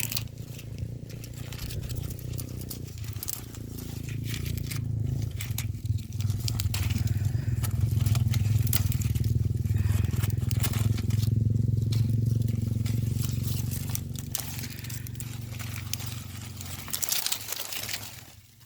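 Dry cowpea plants and pods crackling and rustling as they are handled and picked by hand. Underneath runs a low, steady drone that grows louder through the middle and fades away near the end.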